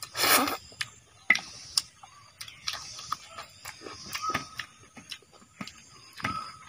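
Close-up eating sounds: a loud wet slurp or suck right at the start, then a run of quick chewing and lip-smacking clicks as curry and rice are eaten by hand, with another wet slurp near the end.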